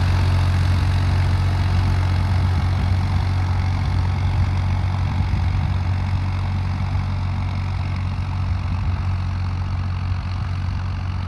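Farmtrac 60 T20 PowerMax 55 HP diesel tractor engine running steadily under load while pulling a 13-tine tiller through sandy soil. It grows slightly fainter as the tractor moves away.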